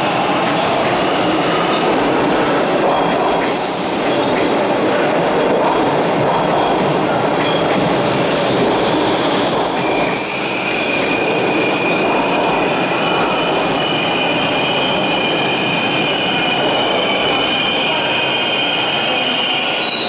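Toronto subway train running along the station platform, a loud steady rumble and rattle of wheels on rail. About halfway in, a steady high-pitched metallic squeal joins it and holds on.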